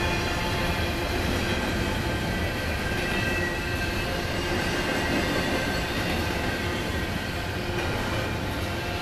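Norfolk Southern double-stack intermodal freight train rolling past: a steady rumble of steel wheels on the rails, with thin high squealing tones over it.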